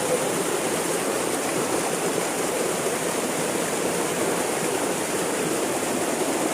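Steady rush of falling water at a waterfall, an even hiss with no breaks.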